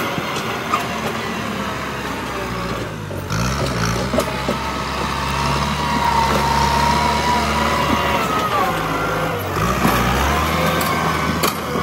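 Kubota M8540 tractor's four-cylinder diesel engine running steadily under load as its front dozer blade pushes soil, with a higher whine rising and falling over the engine note in the middle. The sound changes abruptly about three seconds in and again near the end.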